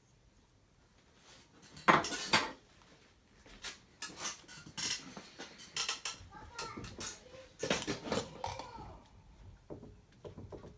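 Hard metal objects clinking and clattering as they are handled: a sharp knock about two seconds in, then a run of irregular clinks.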